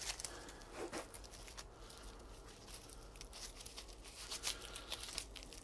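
Faint rustling and crackling of papery garlic bulb skins being handled, with a few sharp ticks scattered through.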